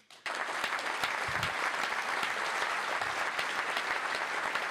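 Audience applauding: dense, steady clapping that starts a fraction of a second in.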